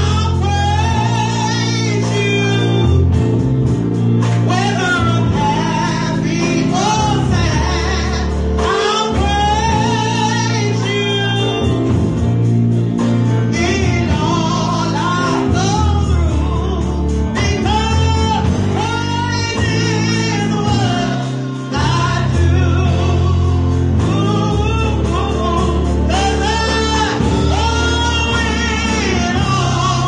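A woman singing a gospel song into a microphone, her voice wavering with vibrato over instrumental accompaniment with steady bass notes and chords.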